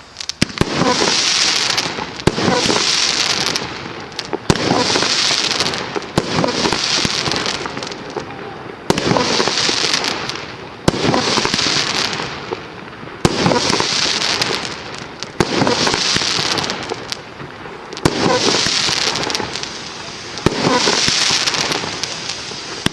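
A 1.2-inch 50-shot compound firework cake firing. Sharp bangs come in waves about every two seconds, each followed by a second or so of hissing crackle from the time-rain effects.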